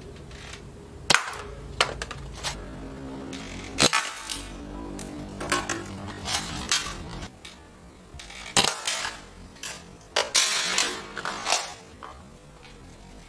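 Spring-powered airsoft rifle (SVT-40 replica built on a Crosman M47) firing, a series of sharp cracks spaced a few seconds apart.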